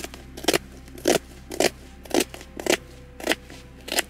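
Knife slicing a red onion on a plastic cutting board: about eight even cuts, roughly two a second, each a sharp tap of the blade on the board.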